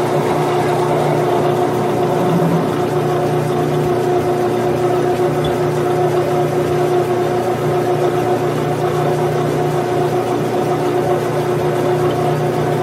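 Grizzly G9972Z benchtop metal lathe running at steady speed, its motor and gear drive giving a constant, even hum with a few fixed tones while the spindle turns brass stock in a four-jaw chuck.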